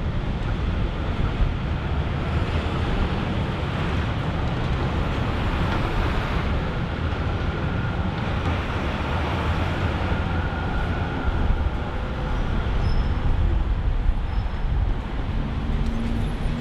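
Steady rumble of electric street trams and trains, as a tram approaches along the street tracks and draws up at the platform stop; a faint high whine comes and goes twice.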